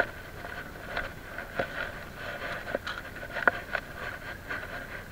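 Quiet background with a faint steady high-pitched hum and a handful of light, irregular clicks and taps.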